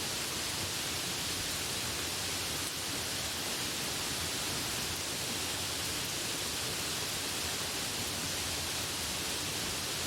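Light rain falling as a steady, even hiss, with no separate drops or other events standing out.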